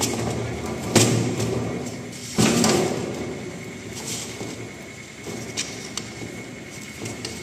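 Crushed stone aggregate being hand-sieved through a galvanized metal 2.36 mm sieve nested on its pan. The metal rims knock and scrape and the chips rattle. Sharp knocks come at the start, about a second in and near two and a half seconds, then a softer shuffling with a few light clicks that fades.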